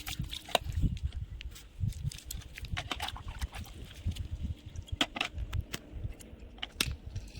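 Plastic toy car being handled and scrubbed by hand: scattered clicks and knocks over irregular low thuds.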